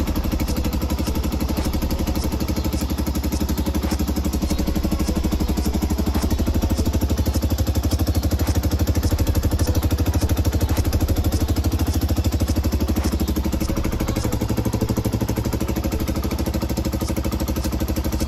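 Taotao TBR7 250 dual-sport motorcycle's single-cylinder four-stroke engine running steadily at idle.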